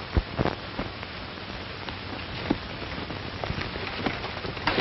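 Steady hiss with scattered, irregular clicks and pops: the surface noise of an old, worn optical film soundtrack.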